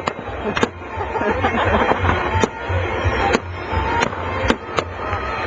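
Fireworks going off, with a series of sharp, irregular bangs, several per second at times, over music with a steady beat.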